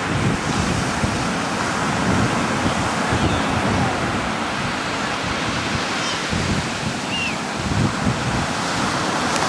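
Ocean surf washing steadily on a beach, with wind buffeting the microphone in irregular low gusts.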